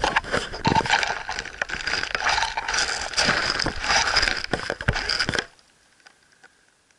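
Dry dead leaves rustling and crackling right against the microphone as the camera is pushed down into the leaf litter of the forest floor. The noise stops abruptly about five and a half seconds in, once the camera is settled.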